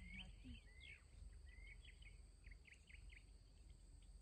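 Faint birds calling: many short chirps and quick rising and falling whistles, over a low steady rumble and a thin, steady high tone.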